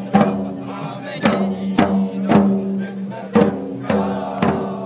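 Marching field drums struck in a slow, uneven beat, over a continuous low droning tone with a melody above it, as in procession music.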